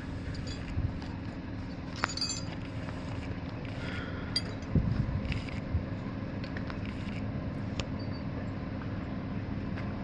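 Crane engine running steadily, with a few scattered light clicks and a dull knock about halfway through.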